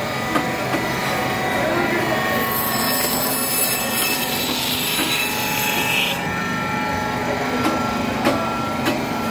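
Electric band saw running steadily while its blade cuts crosswise through a whole sola fish. A harsher, hissing cutting sound sits over the motor from about a quarter of the way in to about two-thirds through, as the blade passes through the fish's body.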